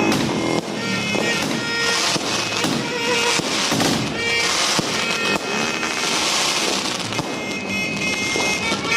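Fireworks going off in rapid succession, with many bangs and crackling bursts one after another, over music.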